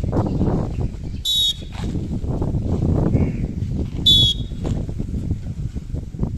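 Short shrill signal tones, twice, about three seconds apart, over a steady low background noise; the tones keep a regular interval that paces the group's changes of exercise position.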